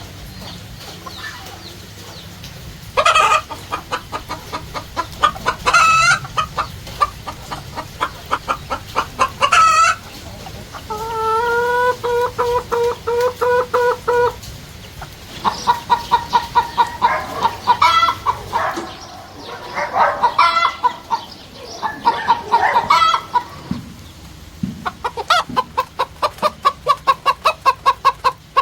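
Chickens clucking in fast runs of repeated calls, with a rooster crowing once in a long held call about eleven seconds in.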